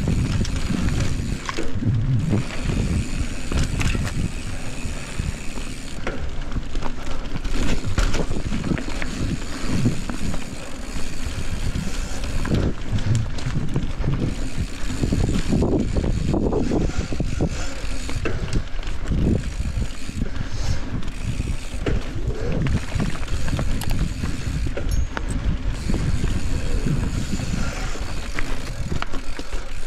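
Mountain bike ridden down a dirt singletrack: tyres rolling over dirt and roots, the bike rattling over bumps with many short knocks, and the rear freehub ratcheting as the rider coasts.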